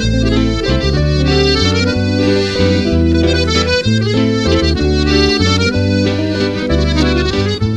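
Instrumental background music: held notes over a steady bass line.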